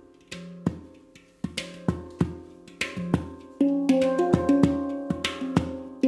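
F Integral 10 handpan, tuned to an F scale (C Db Eb F G Ab C Db Eb), played with the fingers. Single struck notes ring on after each strike. They are spaced out at first, then come quicker and overlap from a little past halfway, with some sharper taps among them.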